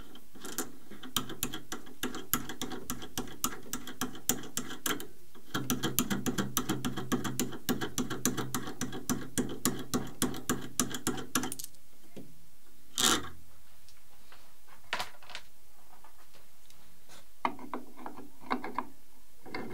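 Rapid metallic clicking of hardware being worked by hand on the motor's prop adapter, for about eleven seconds, coming faster and denser in its second half. Then one loud knock and a few light clicks as the plastic spinner cone is handled and offered up to the cowling.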